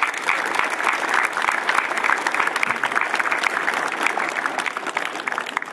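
Crowd applauding: many people clapping together, thinning out near the end.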